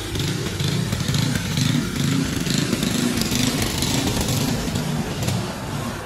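Motor vehicle running while on the move: a steady engine drone with wind and road noise.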